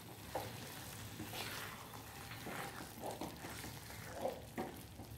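A spatula stirring chunks of chicken in thick masala gravy in a non-stick pan: soft scrapes and stirring sounds every second or so, over a faint sizzle of the curry cooking.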